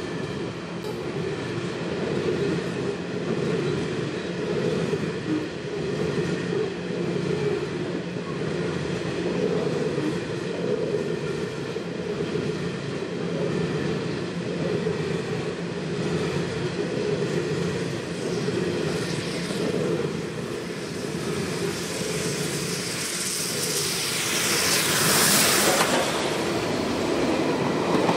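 Steam locomotive 5917 approaching and passing close beside the line. A steady rumbling drone for most of the time swells into a loud rush of noise around the last few seconds as the locomotive goes by, and its carriages follow.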